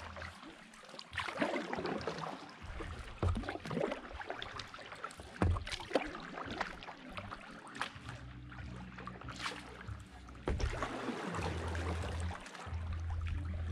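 Kayak paddle strokes dipping into calm water, with irregular splashes and water trickling off the blades. A low rumble comes and goes.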